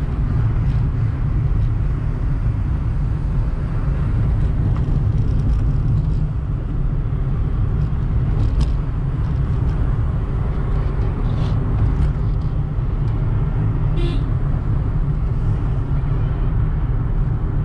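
Car driving, heard from inside the cabin: a steady low rumble of engine and tyre noise, with a few faint clicks.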